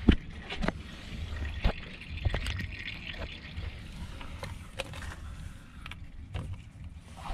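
Sharp clicks and knocks of tools and parts being handled, with a faint trickle of liquid about two to three seconds in, as during an engine oil change.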